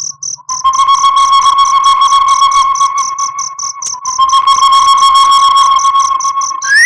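A wolf howl held on one long, steady note, with crickets chirping rapidly throughout. The howl breaks briefly a little past the middle, and a higher, rising howl starts at the very end.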